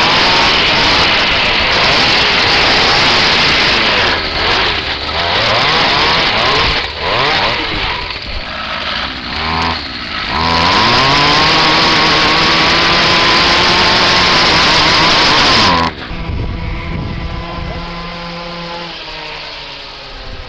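Two-stroke chainsaw engine on a homemade mini bike running at high revs, dipping and climbing several times in the middle before holding high again. About three-quarters through it switches suddenly to a quieter, lower-pitched run whose revs fall away near the end.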